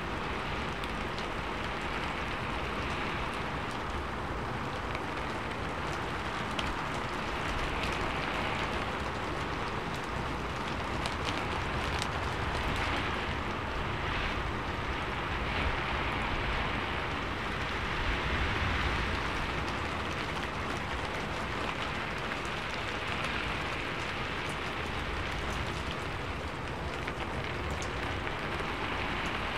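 Steady rain falling on a sheet-metal roof: an even hiss of many drops, with scattered sharper single taps and a low rumble underneath.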